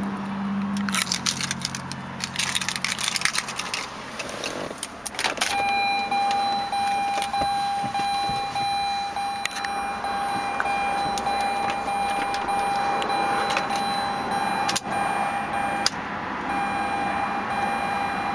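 Keys jangling for a few seconds, then a steady electronic warning tone from the Mazda RX-8's dashboard with the ignition on and the engine not yet running. The tone comes in about a third of the way through and breaks off briefly near the end.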